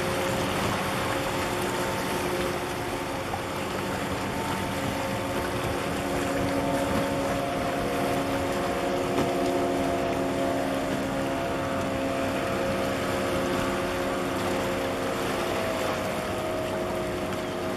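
Steady drone of ship engines passing close by, several held tones over a hiss of wind and water; one tone rises slightly near the end.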